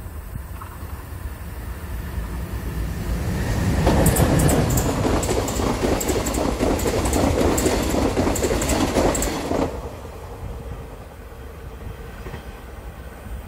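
Mugunghwa-ho passenger train passing close by on the rails. A rumble builds, then there is about six seconds of loud, rapid wheel clatter as the coaches go past. It drops off suddenly as the last coach clears, leaving a fading rumble.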